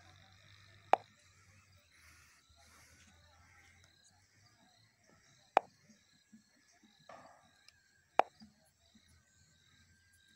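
Three sharp, very short clicks a few seconds apart, about a second, five and a half and eight seconds in, over a faint quiet background.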